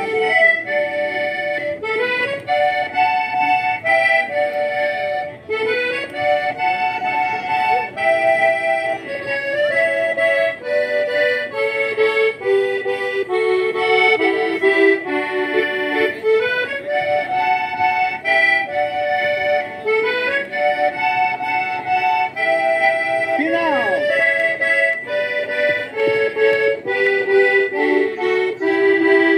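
Button accordion (gaita ponto) playing a lively tune, a quick melody of changing notes over chords, with no pauses.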